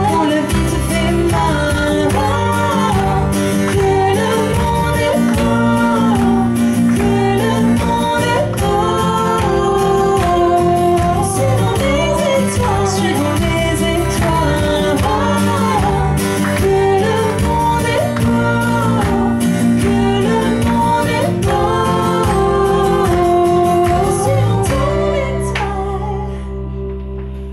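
Live folk-pop duo: acoustic guitar and electric bass with two women's voices singing together. Near the end the singing stops and the song closes on a held, ringing chord.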